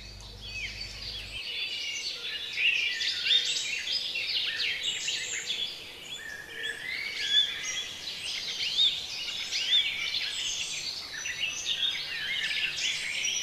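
Several songbirds singing at once, a continuous mix of overlapping chirps and short whistled notes.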